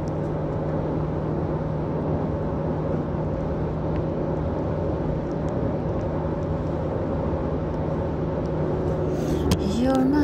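Steady road and engine noise inside a moving car's cabin at highway speed, with an even low hum.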